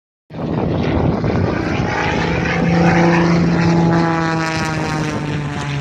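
Engine and propeller of a modified Pitts S-2S aerobatic biplane running at high power in a display pass, starting abruptly, its pitch sinking slowly over the second half.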